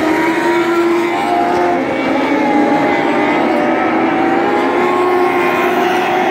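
A pack of dwarf cars racing on a dirt oval, their motorcycle engines running hard all together. Several engine notes overlap and rise and fall as the cars power down the straight and through the turns.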